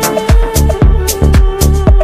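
Dance music with a heavy, steady kick drum about two beats a second, bass and a held tone under it, and percussion between the beats.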